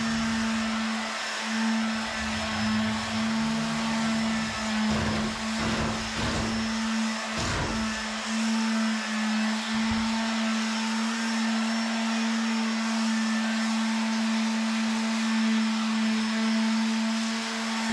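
Small electric motor running steadily with a constant hum.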